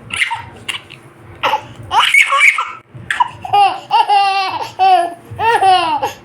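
Baby laughing in bursts: breathy huffs at first, then high-pitched squealing laughs from about three and a half seconds in.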